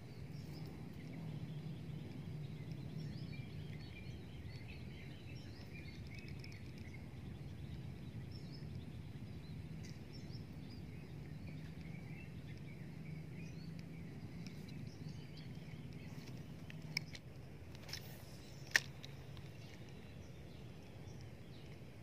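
Quiet outdoor ambience with a steady low hum and faint bird chirps. Two short sharp clicks come a couple of seconds apart late on.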